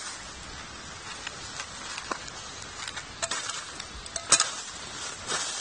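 Small clicks and rustles of hands handling food packets and a metal camp mug, over a steady hiss, with one sharp click about four seconds in.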